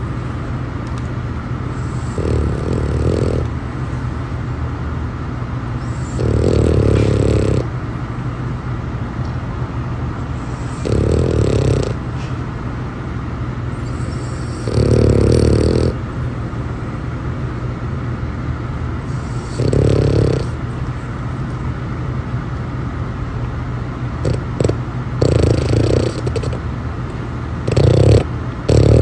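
American bully dog snoring loudly, one snore about every four seconds, coming quicker and more ragged near the end.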